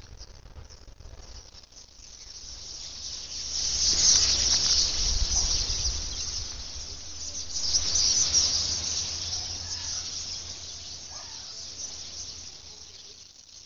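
A huge swirling flock of small birds overhead: a dense, high chatter of countless calls that swells a couple of seconds in, peaks twice and fades near the end, with a low rumble underneath.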